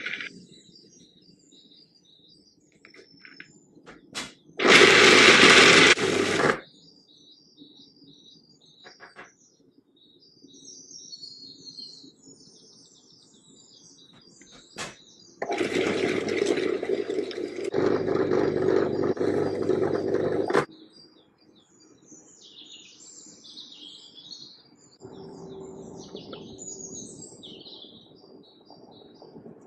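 A food processor runs twice: a short burst of about two seconds grinding whole hazelnuts and desiccated coconut into crumb, then a longer run of about five seconds mixing dates and coconut oil into the crumb to a sticky dough. Birds chirp throughout.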